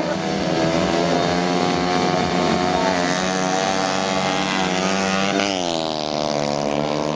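Two small motorcycles in a drag race, engines revving high and steady at the start, then launching; about five seconds in the engine note dips and climbs again as they accelerate away.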